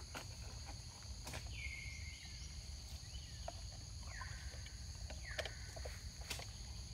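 Steady high-pitched insect chorus, with three or four short calls that slide down in pitch and then hold a level tone for under a second each, and a few faint clicks.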